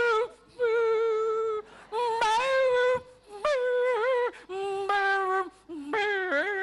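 A single high voice singing unaccompanied: long held, wavering notes in phrases of about a second each, broken by short pauses.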